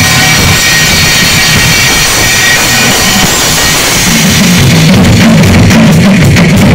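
Live percussion ensemble of several drum kits playing together, loud. Cymbals wash over the drumming for the first few seconds; from about four and a half seconds in, distinct heavy drum strokes stand out.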